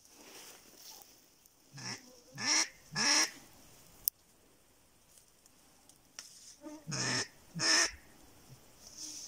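Ducks quacking: three loud, short nasal calls about two seconds in and three more around seven seconds, with a single sharp click between them.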